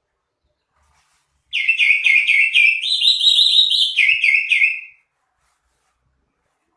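Cucak ijo (green leafbird) singing one loud, fast phrase of rapidly repeated whistled notes that lasts about three and a half seconds.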